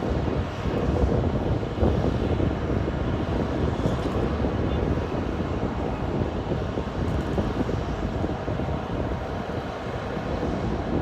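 Boeing 747-400 LCF Dreamlifter's four jet engines running steadily as it taxis, mixed with gusty wind buffeting the microphone.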